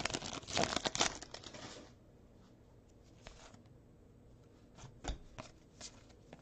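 A foil trading-card pack wrapper crinkling and tearing for about the first two seconds, then a few soft clicks and slides of the cards being handled.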